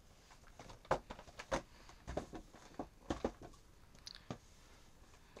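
Irregular light knocks, taps and rustles of hands handling a plastic toy pony and a cardboard toy box.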